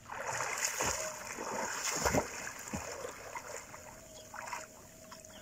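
A child swimming through calm shallow sea, his arm strokes splashing the water irregularly; the splashes are strongest about two seconds in and die down over the last couple of seconds.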